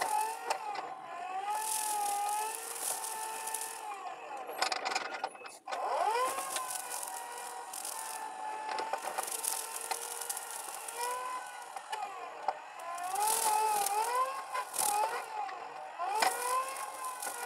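Excavator with a brush mower attachment running: a whining tone that wavers up and down in pitch, with repeated bursts of hiss. About five seconds in the sound cuts out briefly, then the whine climbs back up.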